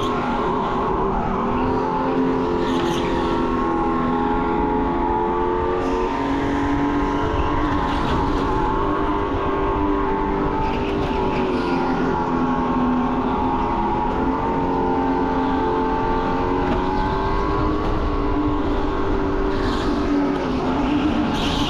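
Electric go-kart at racing speed, heard from the driver's helmet: the motor's whine rises and falls with speed through the corners over wind rumble on the microphone, and the tires squeal briefly a few times.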